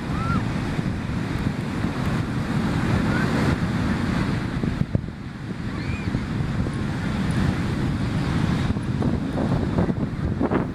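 Ocean surf, with wind blowing across the microphone in a steady, heavy rumble.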